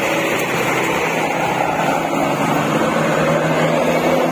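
Coach bus's diesel engine running close by, a steady drone whose pitch rises slightly near the end.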